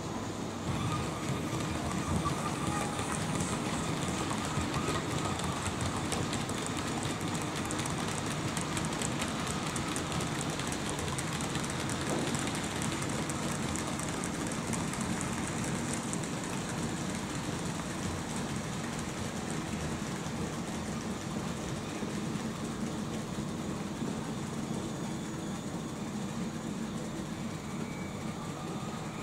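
00-scale model train running along the layout track: a steady rolling noise of small wheels on rail with fine, rapid clicking over the rail joints.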